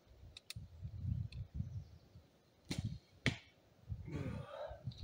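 Handling of a recurve bow and arrow while the next arrow is readied: low bumps and rustling, two sharp clicks about half a second apart midway through, then a short scraping rasp that falls in pitch.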